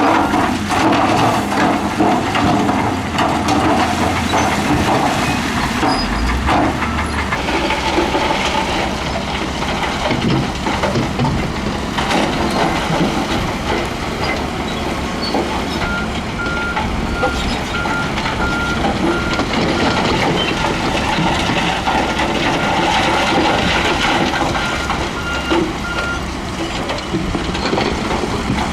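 Heavy diesel earthmoving machinery working in gravel and rock: engine running with constant rattling and clanking. About halfway through, a reversing alarm beeps about twice a second for roughly ten seconds.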